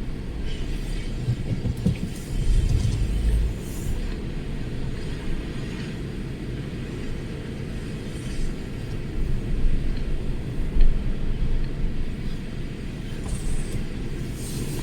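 Strong storm wind buffeting the microphone: a steady low rumble that surges in louder gusts, most strongly about two to four seconds in and again around ten seconds in.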